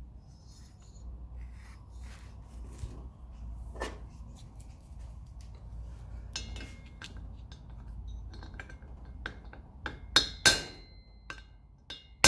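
Metal tools and parts clinking and knocking on a workbench, scattered throughout, with two loud ringing metallic knocks about ten seconds in.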